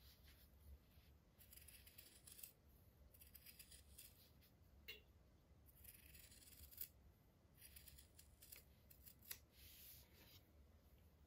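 Scissors cutting through stitched cotton embroidery cloth: a run of faint, crisp snips, a cut every second or so, with an occasional sharper click of the blades closing.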